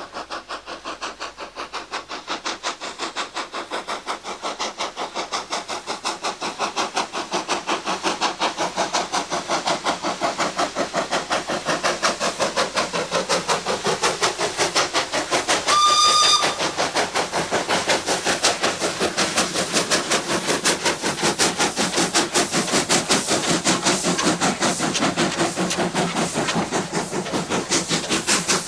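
Steam locomotive No. 5, a 1909 Stephenson-built colliery tank engine, working hard up a steep 1-in-49 gradient with a train. Its exhaust beats come rapid and regular and grow louder over the first several seconds as it approaches. One short whistle blast sounds a little past halfway.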